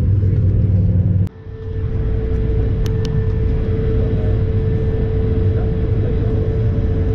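Steady rumble of an airliner cabin with the jet engines running on the ground. It cuts off abruptly about a second in, then resumes with a steady tone over the rumble and a couple of faint clicks.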